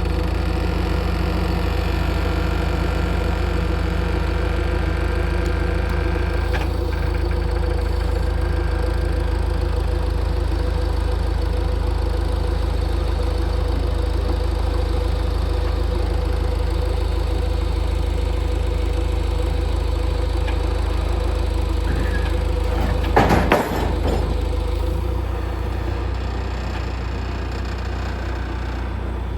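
Engine running steadily with a low drone, broken by a brief louder burst of noise about three-quarters of the way through, after which the sound settles a little quieter.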